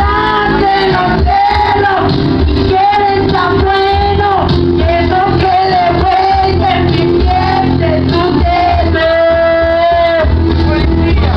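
A woman sings into a microphone over a loud, bass-heavy backing track, amplified through loudspeakers, karaoke-style. Near the end she holds one long, steady note.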